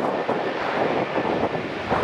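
Jet engines of a Korean Air Boeing 777 rolling down the runway: a steady rushing noise with no clear whine, mixed with wind noise on the microphone.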